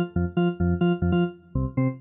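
Wavesequencer Theia software synthesizer playing its FM organ preset "Two Alg Organ Experiment": a chord repeated in short stabs about four times a second, moving to a new chord about one and a half seconds in.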